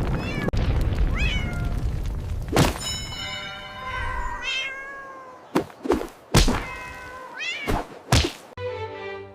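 A cat meows several times, with calls that rise and fall in pitch. A low rumble runs under the first half, and several sharp thuds come in the second half.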